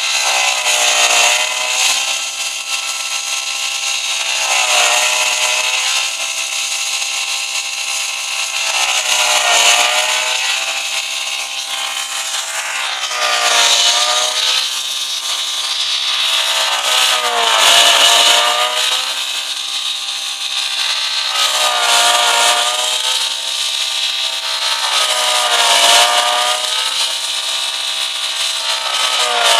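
Wrecked paddock car's petrol engine revved hard again and again, its pitch climbing and dropping back about every four seconds.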